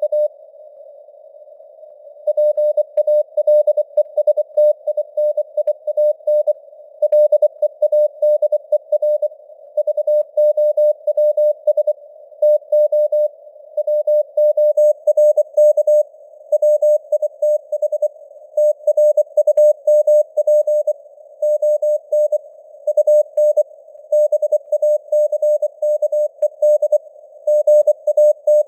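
Morse code (CW) at 24 words per minute: a single tone near 600 Hz keyed on and off in dots and dashes, set in a narrow band of hiss that simulates a radio receiver's noise. After a pause of about two seconds at the start, the sending runs on with short gaps between words.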